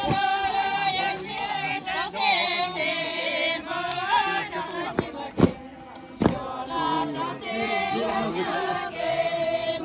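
Group of voices singing or chanting together, several overlapping lines holding and bending notes, with two sharp knocks a little past the middle.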